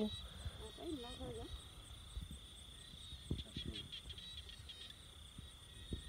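Night insects, crickets, trilling steadily in a continuous high-pitched chorus. A low murmur of voice is heard about a second in, and there are a few soft knocks midway.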